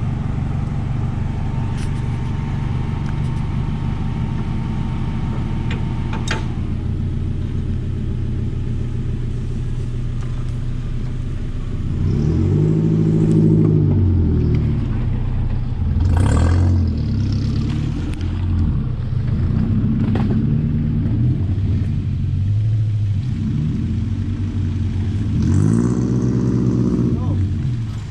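An off-road four-wheel-drive's engine running at steady revs, then revved up and back down several times from about twelve seconds in.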